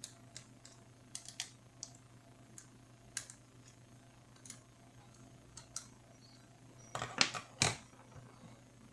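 Small sharp clicks and ticks of a screwdriver working the screws that hold a heat-pipe heatsink onto a laptop graphics card. About seven seconds in comes a louder, quick clatter of several knocks as the card and tool are set down on the desk.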